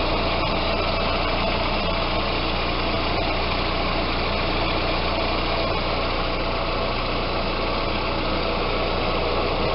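Audi A4 engine idling steadily, its power steering pump running without a hum on fresh, flushed fluid.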